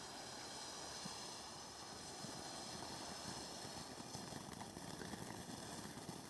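Faint, steady hiss of two firework fountains burning, with a chorus of insects trilling high and steady behind it.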